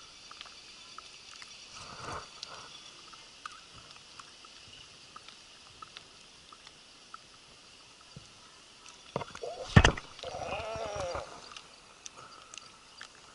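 Steady faint high hiss of insects with scattered light ticks. About ten seconds in there is a sharp loud knock, followed by a man's drawn-out groan lasting about a second, typical of an angler losing a fish.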